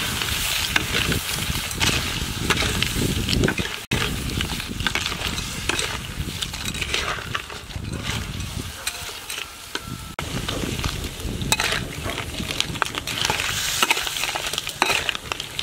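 Whole small field crabs sizzling in hot oil as they are stir-fried in a steel wok, with a metal spatula scraping the pan and the shells clicking and clattering as they are turned. There is a brief dropout about four seconds in.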